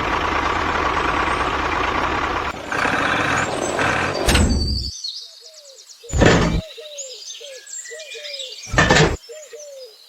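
A steady rushing noise cuts off about five seconds in, leaving a bird chirping over and over, about two short chirps a second. The chirping is broken twice by a short loud burst.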